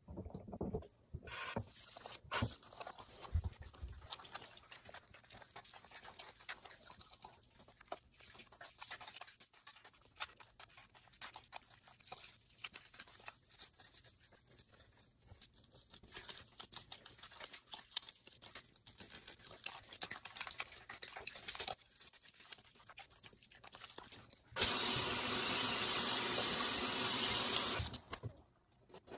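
Hands rubbing and lathering soap: faint, irregular wet rubbing with a few clicks from the soap pump at the start. About 25 s in a bathroom sink tap is turned on and water runs steadily into the basin for about four seconds as the hands are rinsed, then it is shut off; the running water is the loudest sound.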